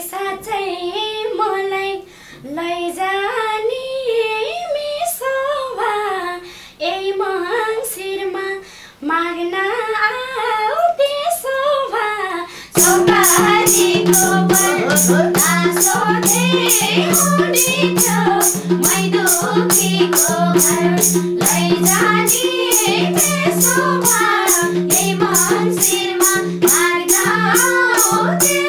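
A Nepali lok dohori song. For the first twelve seconds or so there is mostly singing with light backing. Then the full accompaniment comes in: a steady held drone and a quick, even beat of madal drum and percussion under the singing.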